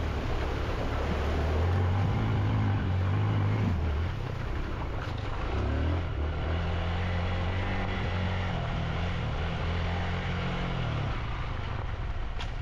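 Motorcycle engine running at low revs, its pitch shifting up and down in steps, over a steady rushing noise of wind and tyres.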